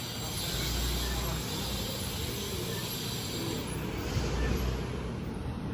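Steady rumble and hiss of a moving vehicle heard from on board, with two short swells in the low rumble, about half a second in and about four seconds in.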